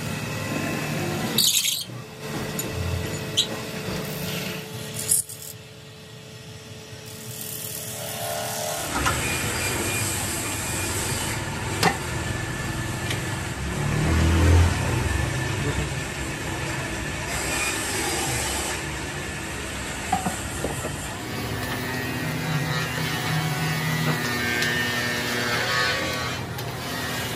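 Wood lathe running while tools and hands work a wooden disc, with scattered clicks and knocks of wood and one louder thud about halfway through.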